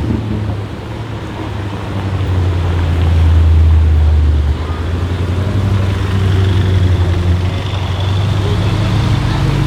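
Jaguar F-Type Project 7's supercharged V8 running at low revs, a steady deep rumble that swells about two seconds in and drops back sharply about halfway through.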